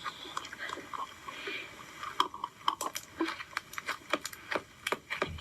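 Slime being squeezed and stretched by hand, giving a rapid, irregular string of sticky clicks and pops.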